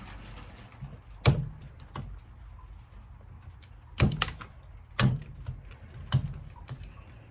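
A Swiss Army knife's chisel blade working a knife-handle scale between drilled holes: a series of sharp, short knocks and cracks, about six spread over several seconds, as pieces are pried and split off.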